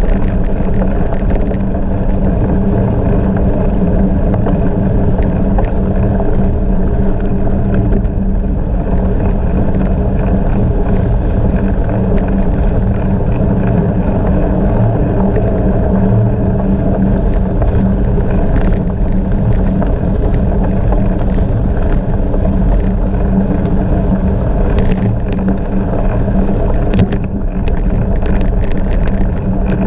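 Steady rush of wind on the microphone mixed with the rolling noise of a bicycle ridden at speed, with a few short rattles near the end.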